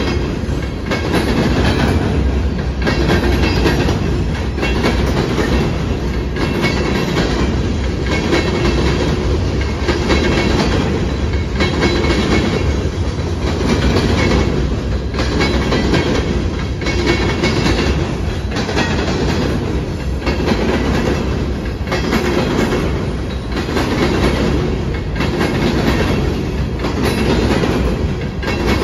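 Freight train of aggregate hopper cars rolling past, steel wheels clacking over the rails in a steady repeating rhythm.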